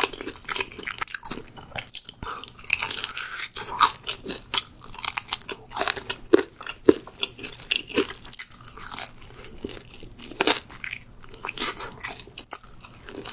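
Close-miked crunching and chewing of crispy seasoned fried chicken: repeated crackly bites and chews of the fried coating.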